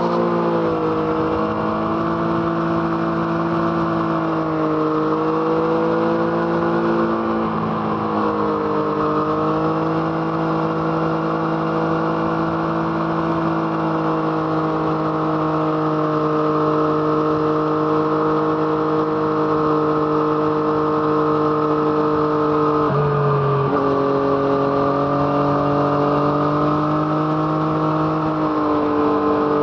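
Yamaha MT-09's inline three-cylinder engine through an Arrow Thunder aftermarket exhaust, heard from the bike while riding at a fairly steady engine speed. The engine note wavers gently, and about 23 seconds in it dips sharply and then settles at a new pitch.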